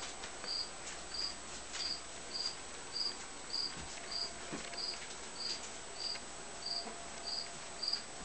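An insect chirping: a short, high chirp repeating evenly about every 0.6 s. Underneath it is the faint scuffling of puppies wrestling on a carpeted scratcher.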